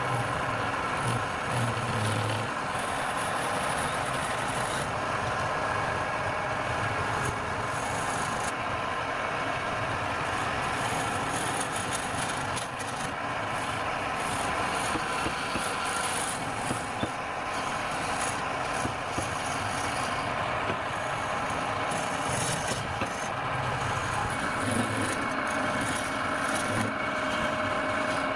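Woodturning lathe running steadily with a motor whine, a tool rubbing and scraping against the spinning wood.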